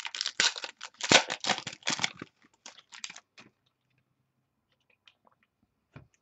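A trading card pack's wrapper crinkling and tearing as it is pulled open by hand. It is a dense crackle for about two seconds, then a few scattered clicks as the cards are handled, dying away about three and a half seconds in.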